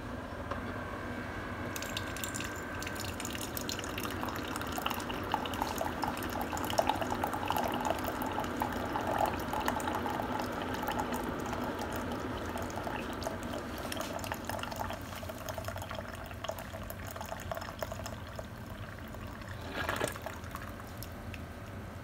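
Keurig single-serve brewer running a brew cycle: a steady hum, then about two seconds in a stream of hot water starts pouring into a ceramic mug and splashes steadily, with a brief louder sputter near the end as the flow runs out.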